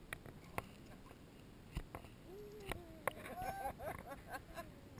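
Pool water lapping against a camera at the waterline, with scattered sharp clicks. From about two seconds in, a soft voice coos in short gliding sounds.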